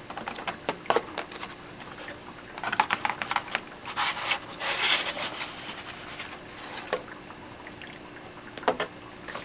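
Cardboard box and its packed contents being handled as a scrubber unit and its coiled power cord are lifted out. Scattered clicks and knocks, with bursts of rustling and scraping in the middle.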